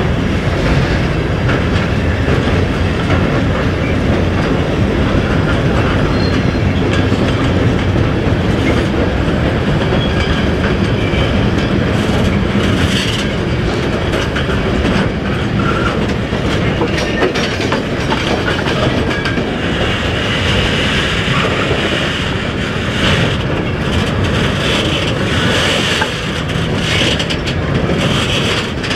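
A slow freight train of open-top bogie wagons rolling past, its wheels rumbling and clattering over the rail joints. Sharp metallic clicks and knocks come more often in the second half.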